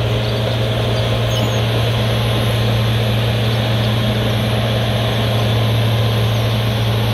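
Cat 963C track loader's diesel engine running at a steady speed, a constant low hum over a steady noise.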